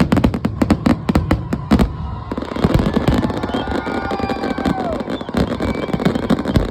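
Fireworks display going off: a fast run of sharp bangs for the first two seconds or so, then dense, continuous crackling with more scattered bangs.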